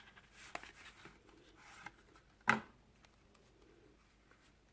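Hands handling items from a gift box, likely vintage trading cards: light rustling and small clicks, with one sharper tap about two and a half seconds in.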